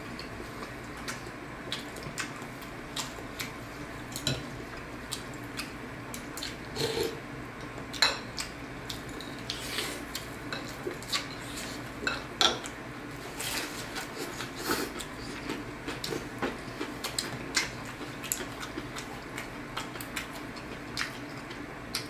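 Chopsticks and porcelain soup spoons clinking and tapping against ceramic soup bowls while eating pho: scattered small clicks and knocks, with two sharper clinks about eight and twelve seconds in.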